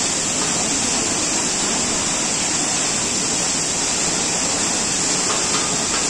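Waterfall rushing: a steady, unbroken noise of falling water.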